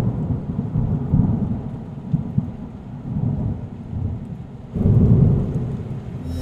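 Thunder rumbling: a deep rolling rumble that starts suddenly, fades, then swells louder again about five seconds in.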